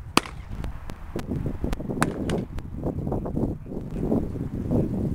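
Baseballs popping into catchers' mitts: one sharp pop just after the start and a few fainter clicks around two seconds in, over low wind noise on the microphone.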